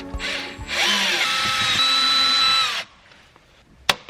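Power drill running for about two seconds, its whine rising as it spins up, then holding steady before it stops; a sharp click follows near the end. It is most likely driving out the screws of the cracked gas filler housing being replaced.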